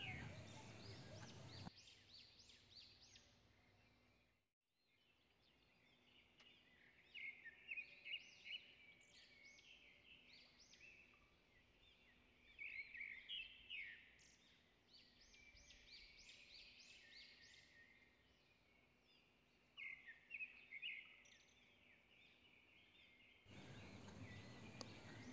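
Near silence, with faint bird chirps in a few short bouts of rapid, high notes.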